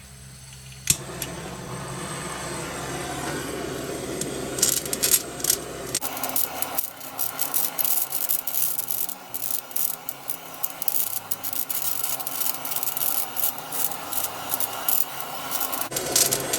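Salted cod roe heating in a microwave oven, crackling and popping in dense, irregular clicks that build up from about four seconds in.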